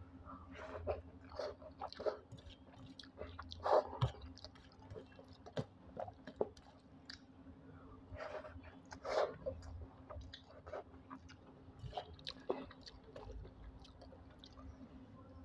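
Close-miked chewing of a mouthful of rice and egg curry eaten by hand: irregular wet mouth smacks and clicks, with a few louder smacks about 4, 9 and 12 seconds in.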